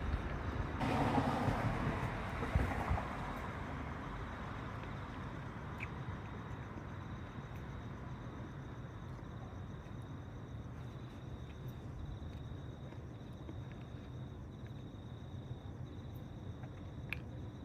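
A brief whooshing rush of noise during the first few seconds, then steady outdoor background in which insects trill on a constant high pitch.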